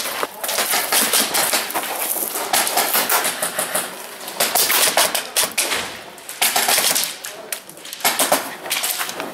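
Airsoft guns firing on semi-auto indoors: an irregular series of sharp clacking shots, several close together in short runs.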